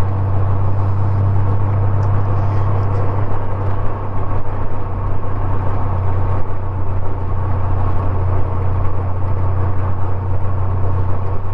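Motorcycle engine running at a steady cruise with road and wind noise, picked up by a helmet-mounted microphone; a brief dip in level about four seconds in.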